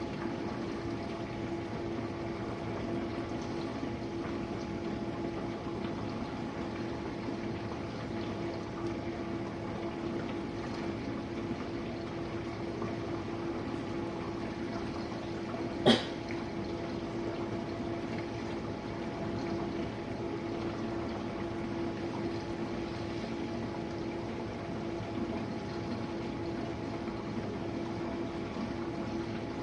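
Jenn-Air dishwasher running its rinse, a steady pump hum with water spraying inside the tub. A single sharp click comes about halfway through.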